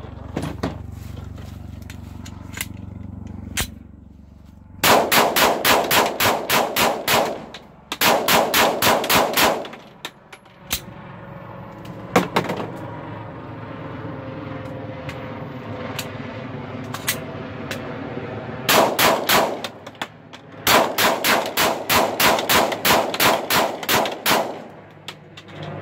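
Glock 19 9mm pistol fired in rapid strings, about four shots a second: two strings about five seconds in, a pause of several seconds, then two more strings near the end.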